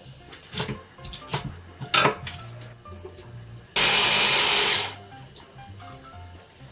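A small electric mini chopper runs in one short burst of about a second, mincing garlic. Before it, a few light knocks and clicks of the chopper being handled.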